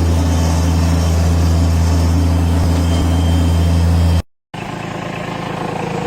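A vehicle engine running steadily at constant speed with a deep hum. It cuts off abruptly about four seconds in and is followed by a quieter engine sound.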